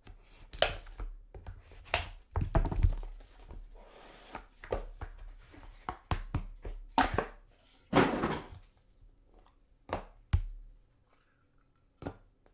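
Trading card box being opened and hard plastic card holders handled and set down on a tabletop: a string of irregular knocks and thuds with a few brief rustles and swishes.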